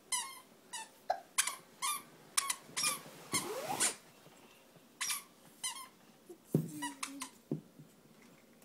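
A child's squeaky shoes squeaking with each step: a string of short, high squeaks about two a second, with one longer squeak a little past three seconds in and a pause just after it.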